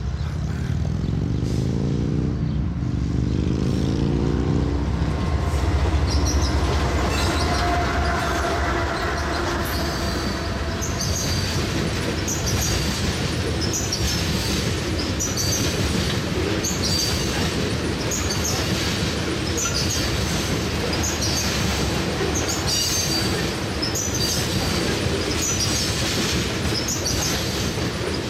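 Two diesel locomotives pulling a freight train past at speed, their engines strong in the first few seconds. Then a long train of oil tank cars rolls by: a steady rumble with a regular clatter of wheels over rail joints about once a second, and repeated high wheel squeal.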